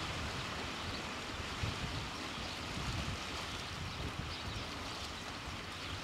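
Wind buffeting the microphone in uneven gusts over a steady wash of small waves on the shore.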